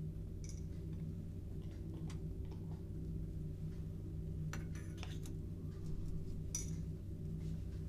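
A few light clicks and clinks as a glass round-bottom flask of liquid is handled, over a steady low hum.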